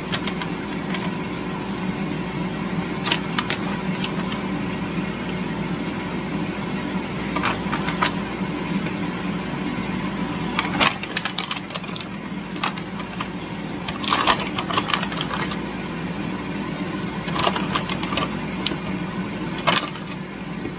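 Frozen gyoza potstickers being set one by one into a pan of stir-fry vegetables, with short crinkles and taps every few seconds from the plastic bag and the dumplings. Under them is a steady low mechanical hum.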